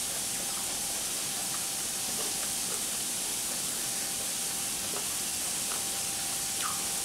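Squid tentacles sizzling on a tabletop grill: a steady hiss with a few small scattered pops.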